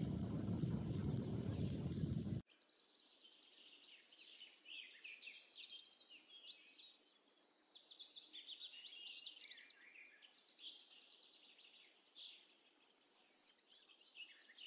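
Wind rushing over the microphone for about the first two seconds, cut off abruptly; then many birds chirping and calling in quick, gliding notes, with a thin, steady high buzz at times.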